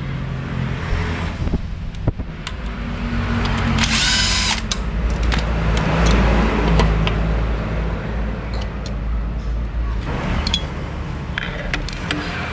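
Cordless drill-driver whirring in short runs, with sharp clicks and rattles of parts being handled.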